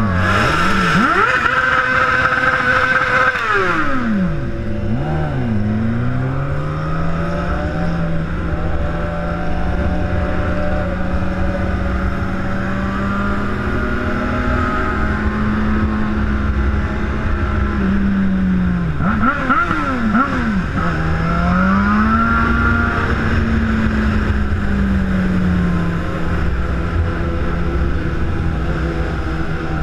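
Engine of a ridden vehicle running steadily, its pitch dipping and climbing back several times near the start and again about two-thirds through, with wind rumbling on the microphone.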